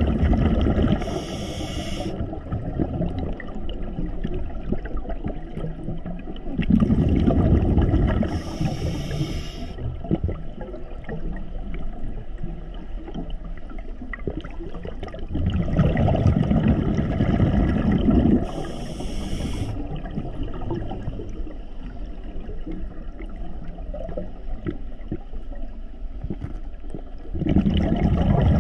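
Scuba diver breathing on an open-circuit regulator, heard three times: a rumbling gurgle of exhaled bubbles, followed a second or so later by the short hiss of an inhalation through the regulator, then a pause.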